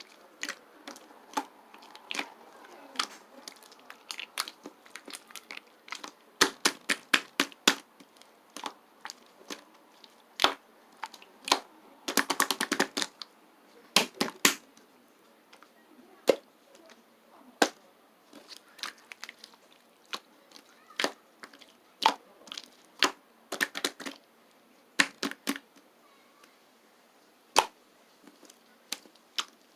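Mixed slime being pressed and squeezed by hand, giving sharp clicking pops at irregular intervals, with a dense run of crackles about twelve seconds in.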